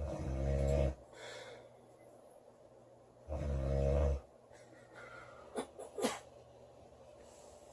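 A woman snoring loudly: two long snores about three seconds apart on the breath in, each followed by a softer breath out, then a few short clicks a little later.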